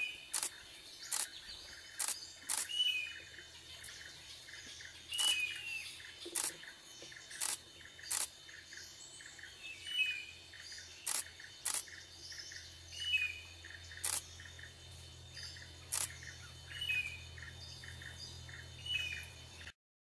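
Silver-breasted broadbill giving short, high, down-curving calls every few seconds, with irregular sharp clicks in between. The sound cuts off suddenly just before the end.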